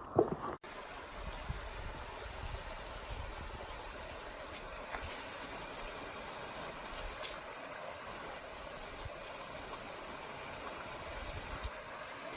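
Steady rush of flowing water, starting abruptly about half a second in.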